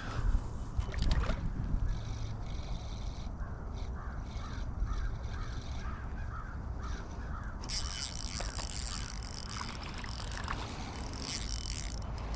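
Running river water with wind rumbling on the microphone. A bird calls in a quick run of short, repeated notes for several seconds in the middle, and a higher hiss of water comes in after that.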